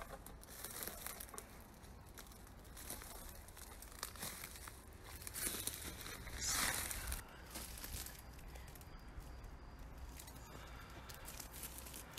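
Dry twigs and dead brush crackling and rustling as someone pushes through dense, dry undergrowth, with a louder burst of rustling about six and a half seconds in.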